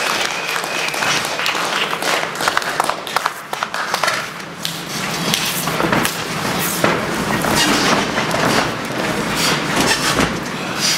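Scattered clapping and shouts from a small crowd in a hall, with sharp knocks and thuds of wrestlers moving and grappling on the ring canvas.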